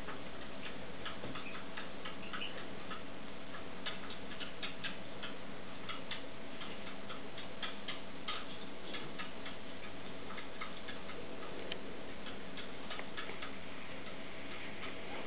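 A stone marten pup suckling at a baby-bottle nipple, making a run of soft, irregular clicking and smacking sounds, several a second, over a faint steady hum.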